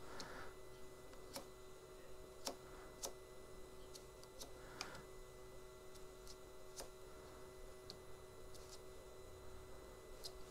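Faint, irregular clicks, about one a second, over a low steady hum: the handlebar controller wheel being turned and pressed to step through the navigation menus.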